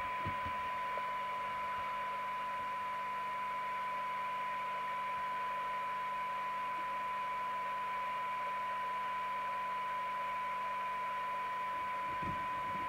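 Rotel RVC240 FM CB radio receiving a weak signal-generator test signal: a steady 1 kHz test tone heard through hiss, while its receive coils are aligned for best SINAD. A few faint knocks near the start and end.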